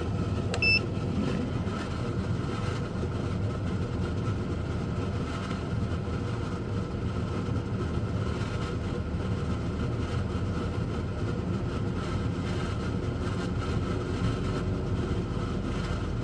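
A 12 V under-bunk air conditioner running on full power: a steady hum and whoosh from its compressor and fan. A brief beep sounds near the start.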